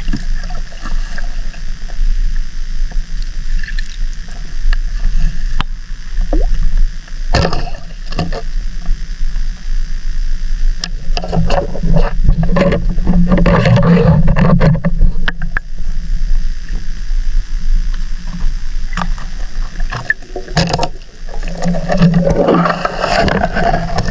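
Underwater sound through a GoPro's sealed underwater housing: a steady muffled rumble of moving water, with scattered sharp clicks and knocks. There are denser, louder stretches of sloshing noise about halfway through and again near the end.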